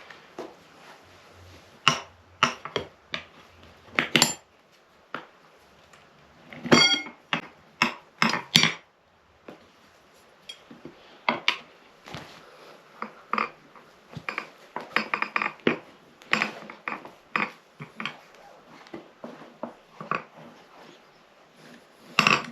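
Steel tyre irons clinking, scraping and clanking against a motorcycle wheel rim as the tyre is levered off by hand. Irregular metallic knocks throughout, the loudest a ringing clank about seven seconds in and a couple of sharp strikes near eight and a half seconds.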